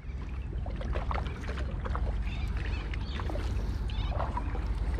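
Kayak paddle strokes in calm river water: the blades dipping and splashing, with drips falling off the paddle, over a steady low rumble.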